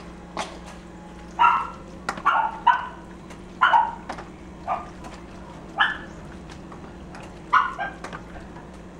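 A dog barking: short sharp barks, singly and in quick pairs, about ten over several seconds, with light clicks of a spoon stirring in a plastic container between them.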